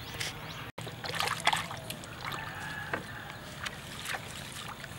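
Water splashing and sloshing as hands work in shallow river water at the edge of a wooden boat, with a handful of separate sharp splashes and knocks, the loudest about a second and a half in.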